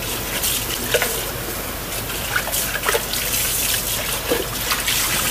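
Kitchen faucet running into a stainless steel sink while a plastic mixing bowl is rinsed out under the stream, water splashing off the bowl, with a few short knocks and splashes as the bowl is handled.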